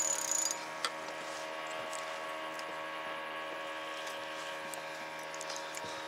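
Outboard motor running steadily at low speed, an even droning hum, with a short rustle of handling right at the start and a single click just under a second in.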